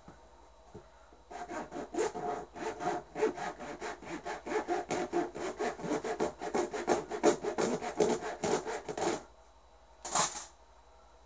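Handsaw cutting into a cowboy boot: quick back-and-forth strokes, several a second, for about eight seconds. A single short noise follows about a second after the sawing stops.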